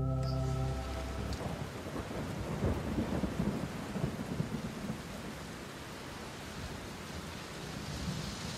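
Cardstock paper rustling and crackling as a folio's paper panels are handled and pressed flat by hand, busier a few seconds in. A guitar chord dies away at the start.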